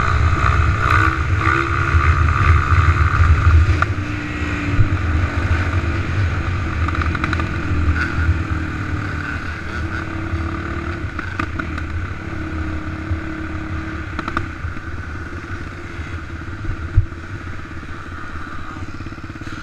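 Off-road vehicle engine running under way on a dirt trail, revving up and down over the first few seconds and then settling into steadier, somewhat quieter running. A single sharp knock sounds near the end.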